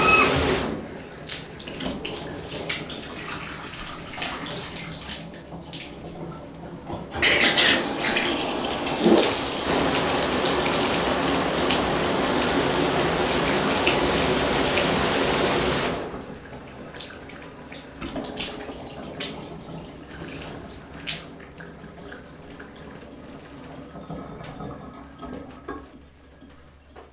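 Shower water: a loud, even spray starts suddenly about seven seconds in and stops suddenly about sixteen seconds in. Before and after it, quieter drips and trickles, fading near the end.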